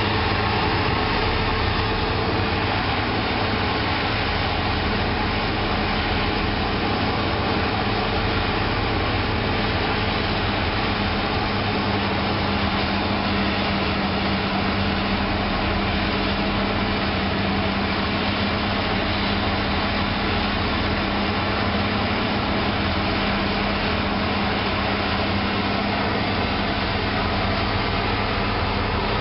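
Heavy diesel farm machinery running steadily while maize is being chopped: a continuous engine drone with a steady hum.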